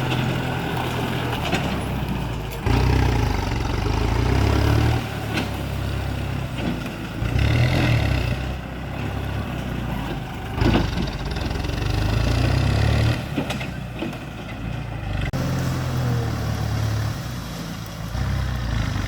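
Kubota MU5702 tractor's diesel engine running under varying load, its note swelling and easing every few seconds. There is a single sharp knock about eleven seconds in.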